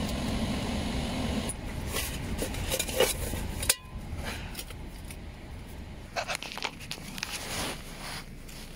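Handling and rustling with a few clicks over a low rumble of wind noise; a sharp knock a little under four seconds in, after which the rumble drops away, followed by a few softer clicks.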